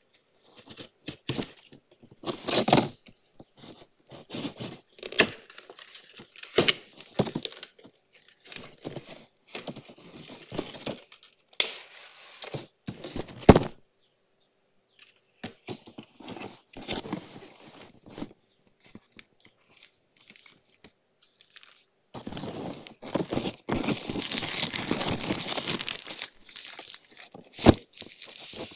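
Cardboard router packaging being slit with a small blade and opened by hand: a run of short scrapes, tears and rustles with a few sharp taps. Near the end comes several seconds of continuous plastic crinkling as the router is drawn out of its plastic bag.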